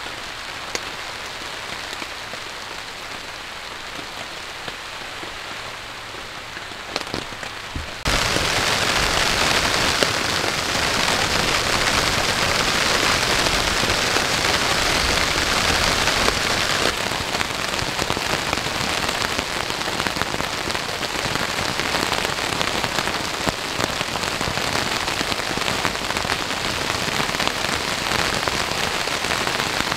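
Heavy rain falling steadily, a dense hiss of drops with no pitch. About eight seconds in it cuts abruptly to a louder, brighter downpour.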